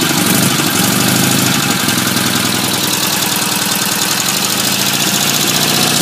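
Chang Jiang 750 M1's side-valve flat-twin engine idling steadily just after a cold kick start, with the choke partly off and the ignition retarded.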